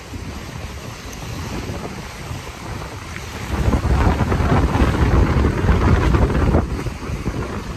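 Wind buffeting the microphone with a low rumble, gusting harder about three and a half seconds in, over choppy lagoon waves splashing against a stone seawall.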